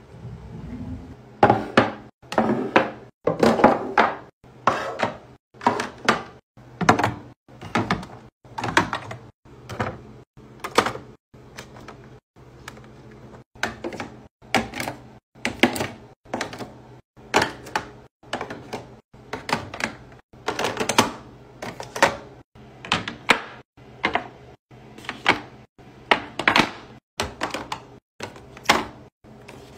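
Plastic skincare bottles and jars set down one after another into clear acrylic drawer organizers: a steady run of sharp clacks and knocks, about one a second.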